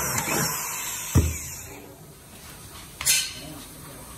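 Corded electric hand drill running as it bores through the steel clamp band of a spin-dryer tub, dying away about two seconds in. A sharp knock comes just after a second, and a single sharp click about three seconds in.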